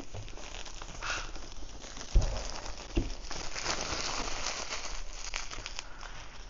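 Clear plastic shrink-wrap film being torn off a cardboard box and crumpled in the hand, a crackling crinkle, with two soft thumps about two and three seconds in.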